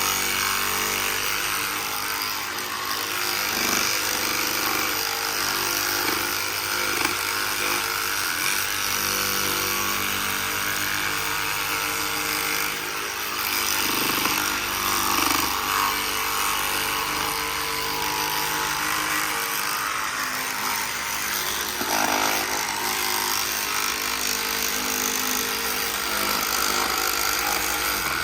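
A machine running steadily with a constant hum and hiss, and a few faint knocks over it.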